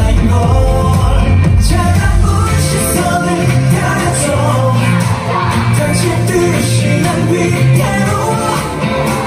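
Live K-pop song with male vocals over a pop backing track, played loud through an arena PA and recorded from the audience. The heavy bass drops out about three seconds in and returns higher up.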